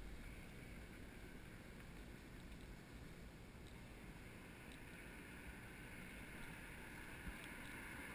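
Near silence: faint steady outdoor background noise with a low rumble and a few faint ticks.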